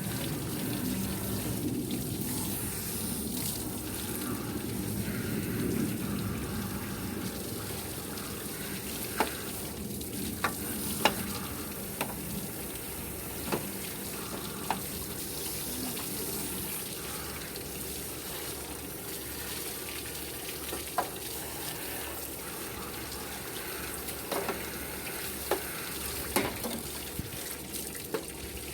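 Water running and splashing as barbecue grill tools are washed, with scattered short, sharp clinks through the middle and toward the end.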